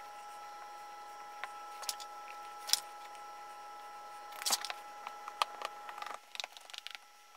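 Oil-bonded casting sand (Petrobond) being scooped and pressed into a wooden flask by gloved hands: soft scattered crunches and scrapes, with a run of quick taps from a wooden rammer packing the sand near the end. A faint steady hum underneath stops about six seconds in.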